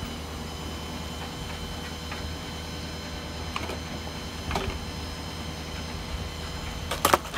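Rollback tow truck running with a steady low drone while a burned-out car is let down its tilted bed. There are a few scattered clicks and knocks, then a sharp double clank near the end.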